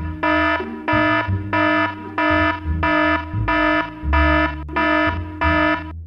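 Electronic alarm-style beeping: about ten even beeps at one pitch, roughly one and a half a second, over a low bass line that shifts in pitch.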